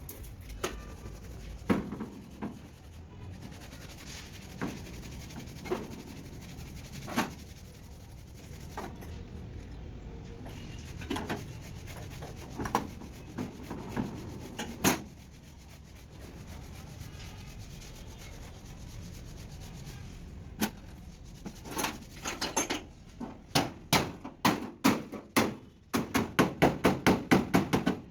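Hammer blows on the sheet metal of a truck cab during bodywork: scattered single knocks at first, then a quickening run of strikes that settles into a fast, even hammering near the end.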